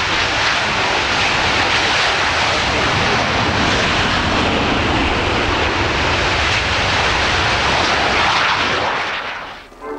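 Jet noise from a formation of Aermacchi MB-339 trainers, each powered by a single Rolls-Royce Viper turbojet, running at take-off power after brake release: a loud, steady roar that cuts off near the end.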